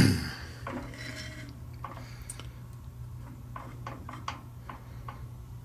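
Light metallic clicks and taps from hand work on a lathe's four-jaw chuck as a part is being indicated true, with a knock right at the start. A steady low hum runs underneath.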